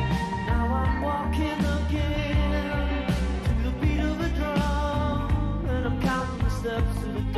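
Background rock song with singing over a steady beat.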